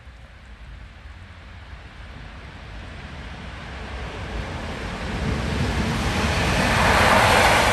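PKP Intercity EP07 electric locomotive hauling a passenger train on the approach: a rumble and rush of wheels on rail growing steadily louder, loudest near the end as it draws close.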